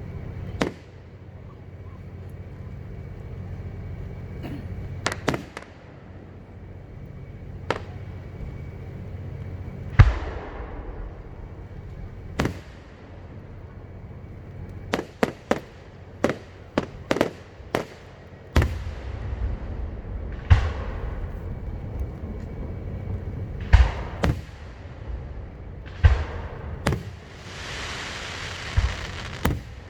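Aerial fireworks bursting overhead: irregular sharp bangs, some followed by a rolling rumble. About halfway through comes a quick run of reports. Near the end there is a few seconds of hissing.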